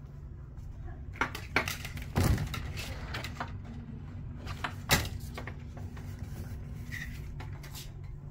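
A sliding glass balcony door is pushed open past rattling vertical blinds, with knocks about a second in and a heavier knock and rattle near two seconds. A single sharp knock comes near five seconds in as the door is shut. A steady low hum runs underneath.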